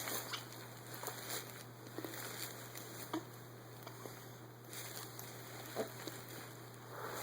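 Faint scattered rustles and soft clicks over a steady low hum.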